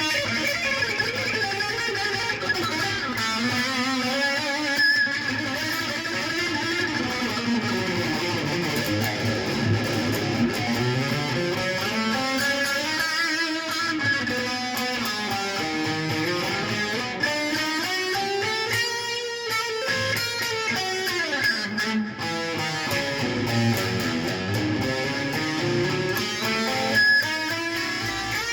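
A stringed instrument played continuously, its notes sliding up and down in pitch.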